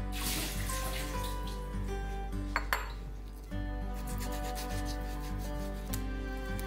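Chef's knife sawing through raw beef flank steak and scraping on a plastic cutting board, with two sharp knocks about halfway, over steady background music.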